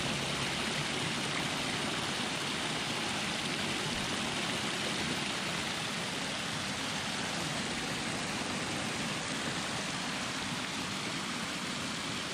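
River water running steadily, a constant rushing hiss of flowing water.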